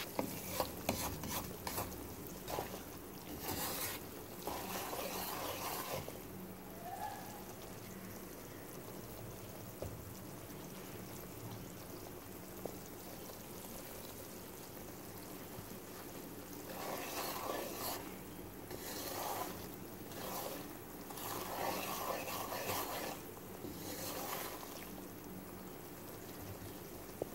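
Semolina roasting in hot ghee in a wok, a faint steady bubbling sizzle. A wooden spatula stirs and scrapes through it in spells, near the start and again past the middle.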